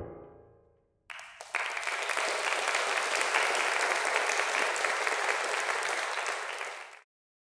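Final chord of a grand piano dying away, then an audience applauding; the applause cuts off suddenly about seven seconds in.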